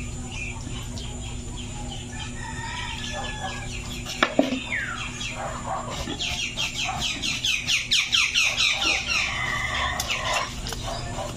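Chickens clucking, with a rapid run of calls starting about six seconds in and lasting a few seconds, and a sharp knock just after four seconds.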